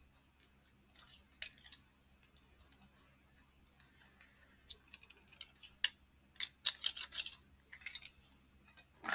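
Scattered light clicks and short rustles of small objects being handled: a mini face roller rolled on the face and then put down, and the next item picked up, the clicks coming more often in the last few seconds.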